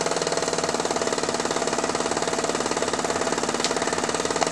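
Mamod SP1 toy steam engine, a single oscillating cylinder on live steam, running at speed and driving a belt-driven Wilesco model workshop: a rapid, steady mechanical beat.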